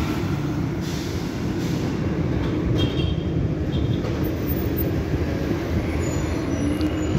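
Steady low rumble of city street traffic, engines running close by.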